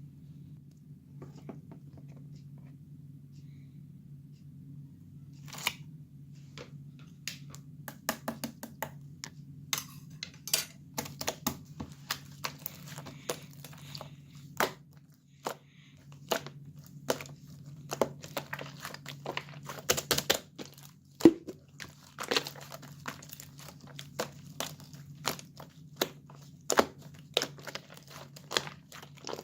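Purple slime being worked by hand, giving irregular sharp clicking pops and crackles that start about five seconds in, over a low steady hum.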